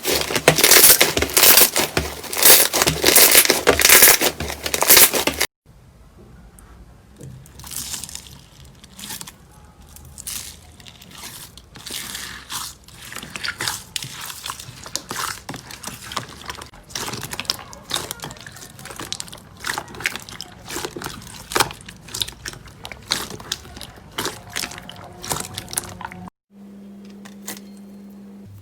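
Slime being squeezed and pressed by hand, first with loud, dense crackling and crunching. After a cut, it turns to quieter, irregular clicks and pops. Near the end, a steady low hum.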